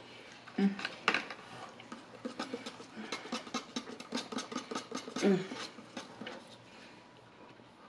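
A plastic straw stirring and scooping thick strawberry shake in a paper McCafé cup, a quick run of light clicks and taps, with a short low hum from the eater twice.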